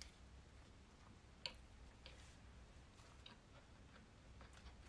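Near silence, with faint mouth clicks from quietly chewing a bite of soft plum cake: one small click about a second and a half in and a few softer ticks later.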